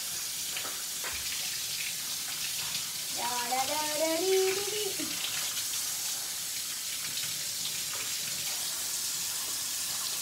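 Kitchen tap running steadily into a stainless steel sink while dishes are scrubbed, with a few small knocks. About three seconds in, a short pitched sound lasts about two seconds.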